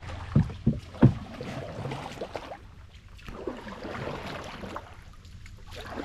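Canoe paddle strokes: three sharp knocks in the first second, then the paddle swishing and splashing through the water in strokes about two seconds apart.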